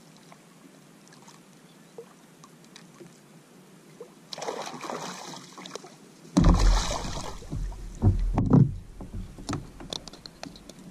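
Water splashing as a king mackerel is hauled out beside a plastic kayak, then heavy thumps and knocks as the fish thrashes against the kayak, in two loud bouts about a second and a half apart, fading to scattered clicks.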